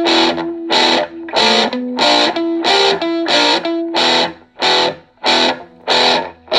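Heavy, distorted electric-guitar music, with loud chords struck in a steady rhythm of about three every two seconds and short held notes between them.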